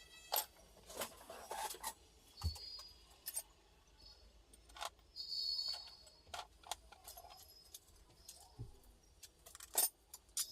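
Hand tools and small metal parts clinking and clicking at irregular moments during hand repair work on a Stihl BR 600 blower engine, with a few short tinkling rings; the sharpest click comes near the end.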